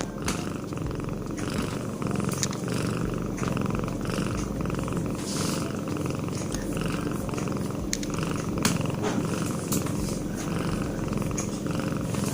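Pet cat snoring in its sleep: a continuous low, finely pulsing rumble that swells and eases with each breath.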